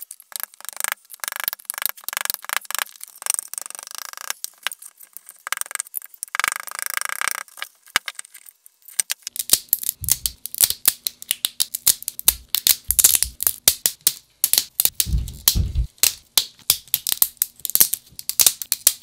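Cured resin 3D-print supports being snapped off by hand and cut with small snippers: a fast, uneven run of sharp clicks and crackles, with a couple of dull knocks.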